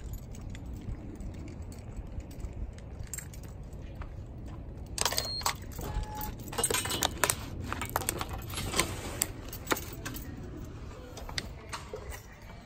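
Keys jangling, with a run of sharp clicks and clinks between about five and ten seconds in as a glass door is opened, over a low steady rumble.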